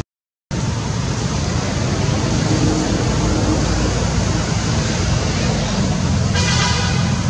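Steady rushing background noise that drops out completely for half a second at the start, with a brief high-pitched call near the end.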